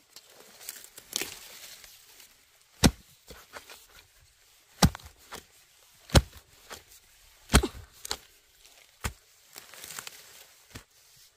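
A blade chopping in a steady series of sharp strokes, the loudest about one every second and a half, with softer rustling and tearing sounds between them.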